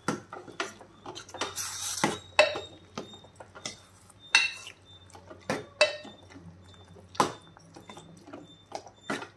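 Metal ladle stirring thick curry in a metal pot, knocking and clinking against the pot's side at irregular intervals, with a longer scraping stretch about two seconds in.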